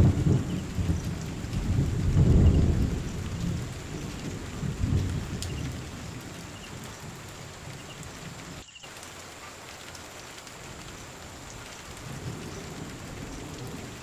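Heavy rain falling steadily on leaves and foliage. Low rumbles swell and fade in the first five seconds and build again near the end. The sound cuts out for an instant a little past the middle.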